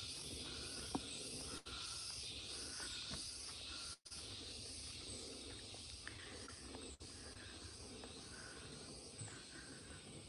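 Tropical forest insects keeping up a steady, high, pulsing buzz-hiss. The sound briefly cuts out three times.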